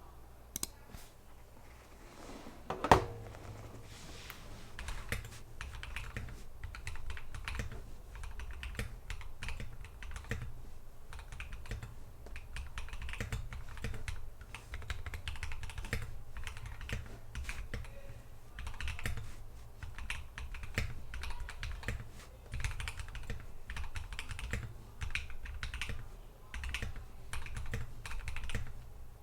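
Typing on a Drop Alt high-profile mechanical keyboard with Dogikon JWK linear switches, lubed with Krytox 205g0 and fitted with switch films: a steady, irregular run of keystrokes. A single sharp knock about three seconds in is the loudest sound.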